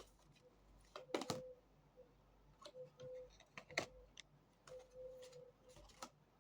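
A handful of light, sharp taps and clicks, spaced irregularly, from tarot cards being handled and laid down on a table.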